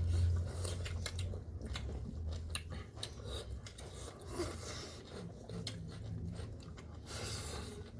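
Small close-up clicks and crackles of food being handled for a mukbang, with a few short rustling bursts over a low steady hum.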